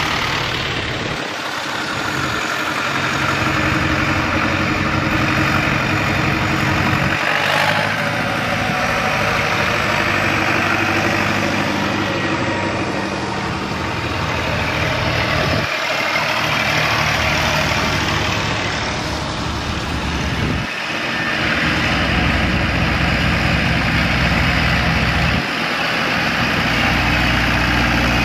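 Diesel engines of vintage tractors, a John Deere and a line of red Volvo BM tractors, running as they drive past one after another. The engine note changes several times as each tractor comes by.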